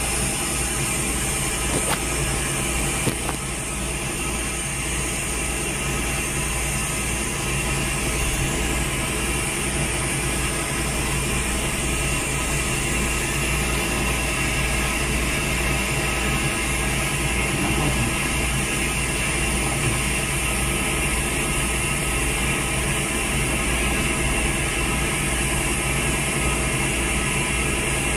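Steady machine hum and hiss running without a break, with several fixed tones in it.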